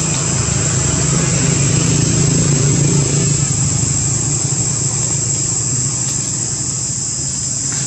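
A steady high-pitched insect chorus, like cicadas, over a continuous low engine hum from a motor vehicle.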